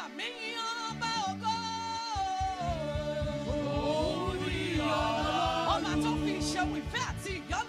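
Women's choir and lead singer singing a gospel worship song in a group. A low sustained bass note comes in about a second in, and a fast, steady low beat joins shortly after.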